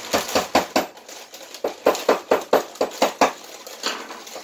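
A quick run of sharp knocks, about four or five a second: a short burst at the start, a longer one from about one and a half to three and a quarter seconds in, and a couple more near the end.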